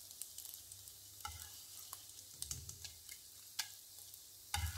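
Scrambled egg sizzling faintly in oil in a nonstick wok, with a few short scrapes and clicks of a slotted spatula against the pan as the egg is lifted out.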